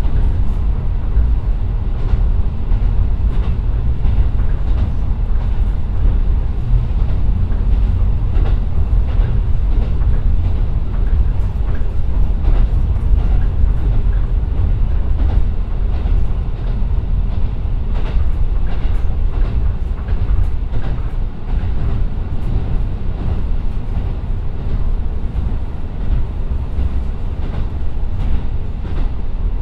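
JR Kyushu KiHa 125 diesel railcar with its Niigata DMF13HZ engine, running along the line and heard from inside the car: a steady low rumble with scattered rail-joint clicks.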